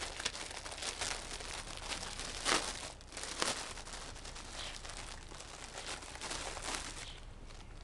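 A softbox's white diffuser silk crinkling and rustling in irregular bursts as it is unfolded and handled; the crinkling dies away near the end.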